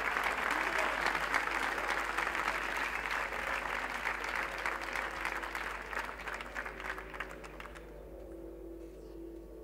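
Audience applause from a live music recording: dense clapping that fades out about eight seconds in, where a few faint held musical notes come in.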